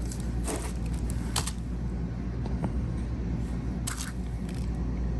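Metal jewelry chains being handled, with a few faint clinks over a steady low hum.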